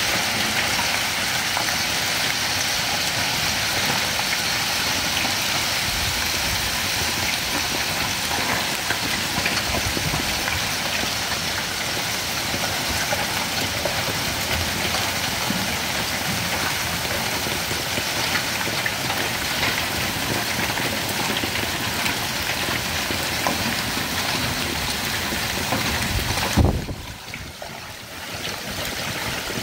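Hail mixed with heavy rain pelting pavement: a dense, steady patter of small impacts. Near the end there is a single sharp thump, after which the patter is briefly quieter.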